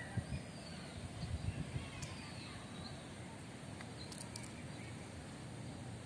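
Outdoor park ambience: a steady background hiss with a few faint, short bird chirps, and some low bumps in the first two seconds.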